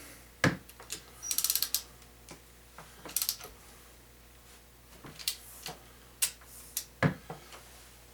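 Hand tools on an engine short block: a quick run of ratchet clicks about a second in, among scattered metal clinks and knocks.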